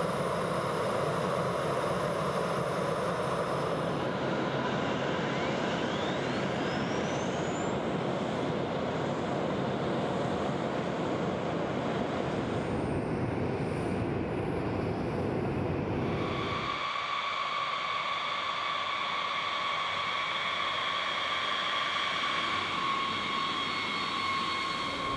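Boeing B-52 jet engines starting and running. A whine rises steeply in pitch over a steady jet rush a few seconds in, as an engine spools up. After about 17 seconds the deep rumble drops away, leaving a steady whine of several high tones.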